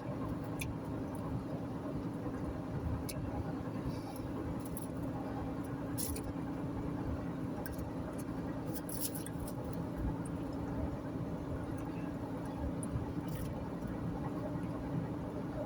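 Steady road and engine noise heard from inside a moving car's cabin at highway speed, with a few faint clicks.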